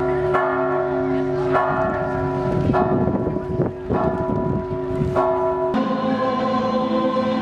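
Church bell struck five times, about once every second and a quarter, each stroke ringing on into the next. About six seconds in the bell stops and a choir singing takes over.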